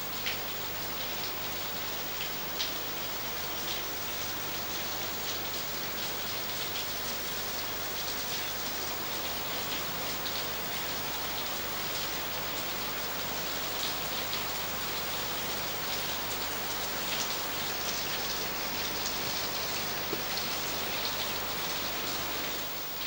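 Small waterfall splashing and trickling down rock in a gorge: a steady rush of falling water with scattered drips and splashes.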